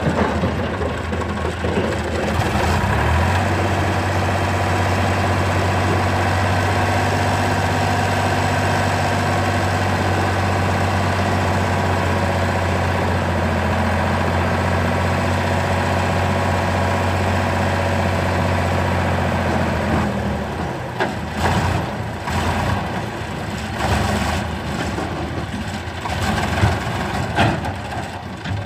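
Sonalika DI 50 tractor's diesel engine working the hydraulic lift to tip a loaded sand trolley. About three seconds in it rises to a steady, higher note. About twenty seconds in it drops back to an uneven idle.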